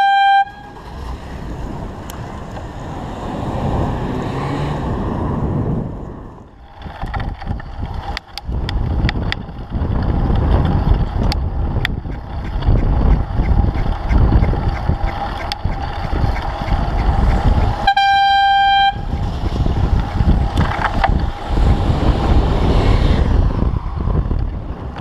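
A single-tone horn sounds briefly twice, once at the start and again about 18 seconds in. Between the blasts there is a continuous loud rumble of wind and road noise from riding.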